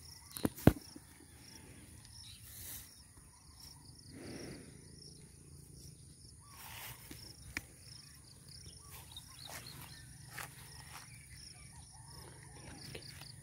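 Insects chirping in pasture grass: a steady high trill with short high chirps repeating evenly throughout. A couple of sharp knocks come just after the start, and there are a few soft rustling swells.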